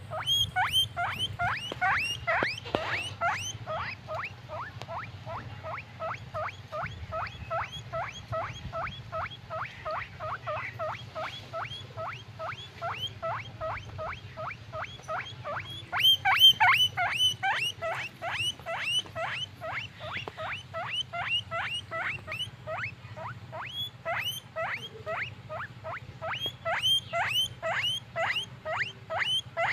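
A guinea pig squeaking in a long unbroken run of short high calls, about three a second, loudest a little past halfway.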